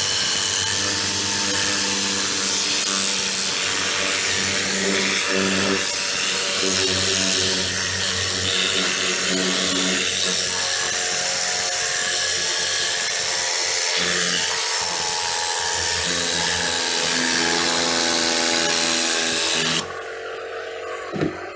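Compressed air hissing steadily through a tornado-style pneumatic cleaning gun as it blasts cleaner into a fabric seat, drawing down the compressor tank. The air cuts off about 20 seconds in.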